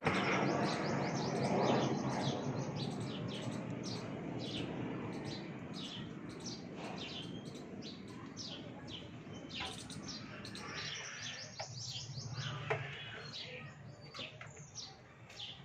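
Small birds chirping: a rapid, continual series of short, high chirps, several a second, over a rushing background noise that fades away over the first ten seconds or so.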